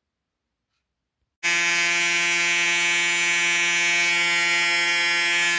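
Braun Series 5 electric foil shaver running after its rechargeable battery has been replaced, its motor giving a steady, even buzz that starts suddenly about a second and a half in.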